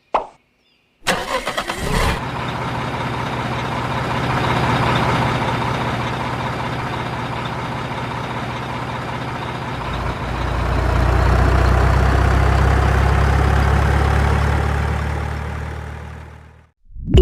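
An engine is cranked for about a second, catches and runs steadily. About ten seconds in its note deepens and grows louder, then it fades out near the end.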